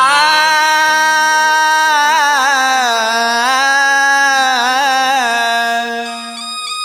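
Music from a Bhojpuri nirgun bhajan interlude: a single held melody note slides up at the start and wavers through ornamented turns over a steady drone. About six seconds in it breaks off and a lighter, higher melody carries on.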